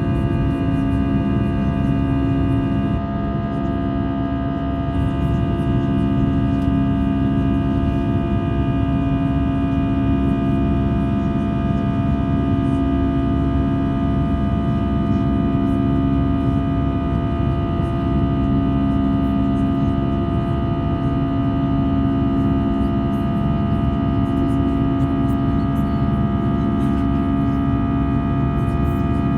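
Steady cabin noise inside an Airbus A320 airliner in flight: the roar of its jet engines and airflow, with several steady whining tones held under it. About three seconds in, one of the higher tones drops away and the noise eases a little.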